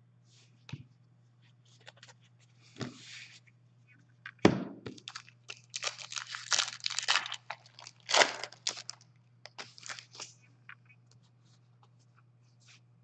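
Hands tearing and handling a foil hockey card pack wrapper and shuffling the cards: irregular crinkling and rustling, with louder crackles about four and a half and eight seconds in. A faint steady low hum sits underneath.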